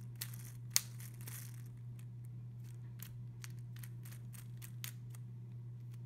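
Toothbrush bristles scrubbing the plastic center caps of a disassembled Rubik's cube core: short scratchy strokes and a string of small clicks, the sharpest a little under a second in.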